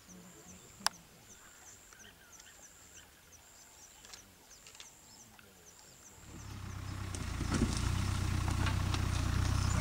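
A safari vehicle's engine comes up about six seconds in and runs steadily with a low hum. Before it, a high chirp repeats about once a second over quiet bush ambience, with one sharp click about a second in.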